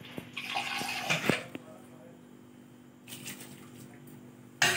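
Washed rice tipped from a steel bowl into a pot of boiling water: a splashing rush with clinks of the bowl against the pot in the first second or so, and a shorter pour about three seconds in, over a low steady hum. A loud short noise near the end.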